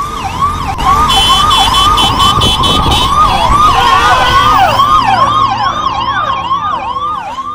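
Emergency-vehicle siren in a fast rising-and-falling yelp, about two to three cycles a second, with a second siren overlapping from about halfway through, over a low traffic rumble. A brief cluster of high steady tones sounds about a second in.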